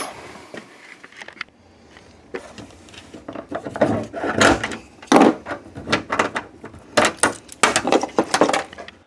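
Roof antenna base and its cable being worked up out of the hole in the roof: irregular plastic scrapes, rustles and clicks, starting about two seconds in and busiest in the second half.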